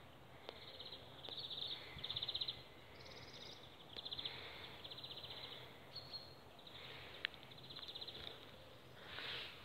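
Insects chirping in the grass: faint, high, rapidly pulsed chirps in short bouts about half a second long, repeated every second or so. There is a sharp click about seven seconds in and a brief rush of noise near the end.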